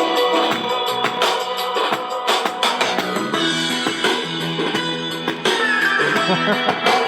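Guitar-and-drums music played loud through a DS18 6.5-inch pro audio midrange speaker on test, with almost no deep bass.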